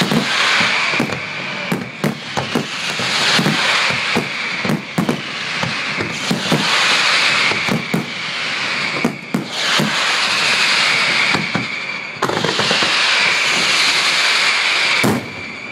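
Fireworks display: a dense, irregular barrage of bangs over a continuous crackling hiss, dropping off suddenly near the end.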